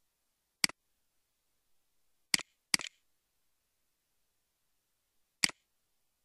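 Four sharp computer mouse clicks in dead silence, two of them close together about two and a half seconds in.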